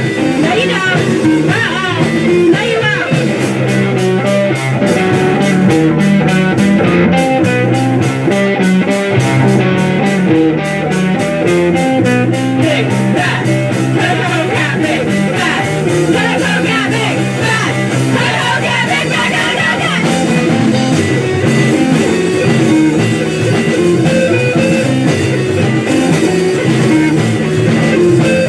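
Live band music in a rock and blues style, led by guitar.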